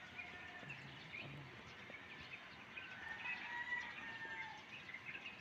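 Small birds chirping, with a few longer whistled calls about three to four seconds in, over faint steady outdoor background noise.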